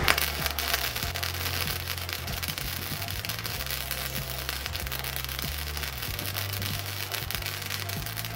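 Wire-feed (MIG) welding arc crackling steadily as a bead is run on steel nuts and a flat-bar bracket.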